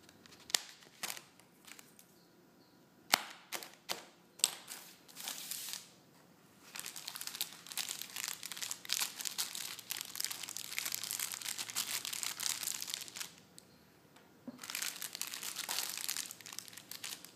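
Plastic bubble wrap being handled by hand: a few sharp snaps in the first several seconds, then continuous crinkling as it is pressed and rubbed, with a short pause about three-quarters of the way through before the crinkling resumes.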